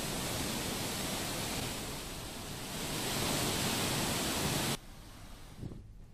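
Heavy floodwater rushing through open dam spillway gates: a steady, even rush of water noise. It cuts off abruptly about five seconds in, leaving only a faint hiss.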